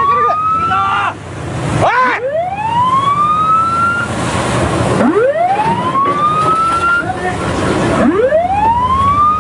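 Ship's warning siren whooping: a rising wail that climbs for about two seconds and repeats about every three seconds, over a steady rushing noise.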